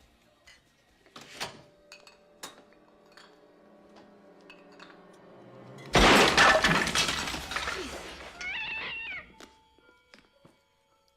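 A few faint knocks, then about six seconds in a sudden loud crash, like something breaking or shattering, that fades away over about three seconds.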